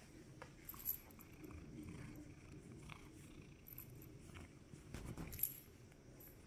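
Domestic cat purring steadily as it is stroked, with two short sharp clicks, about a second in and again about five and a half seconds in.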